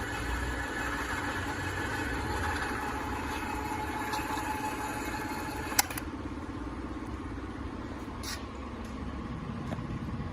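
SWCC MC-100C caterpillar-type cable feeder running under test, its motor and track drive making a steady mechanical whine. A sharp click comes about six seconds in, after which the higher part of the whine fades and a lower hum carries on.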